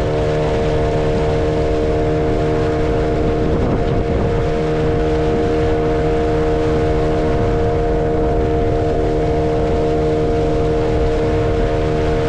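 A small boat's motor running at a steady speed underway, an even, unchanging hum over the rumble of the hull and water.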